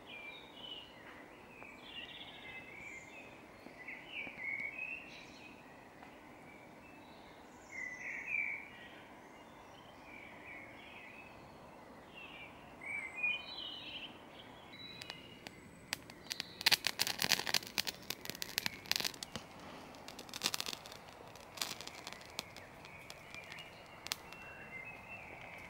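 Dawn chorus: many garden birds chirping and singing. From about 16 seconds in, a close run of sharp clicks and crackling rustles, the loudest sound, breaks in over the birdsong several times.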